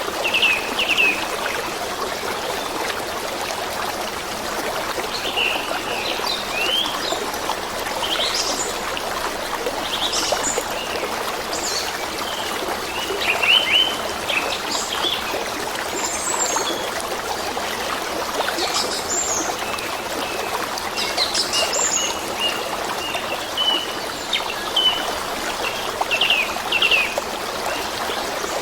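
Flowing water of a forest stream running steadily, with small birds chirping and calling in short bursts on and off over it.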